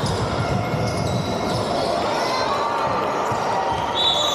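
Basketball game sounds on a wooden sports-hall court: the ball bouncing and short high squeaks, with a louder, longer high squeak about four seconds in.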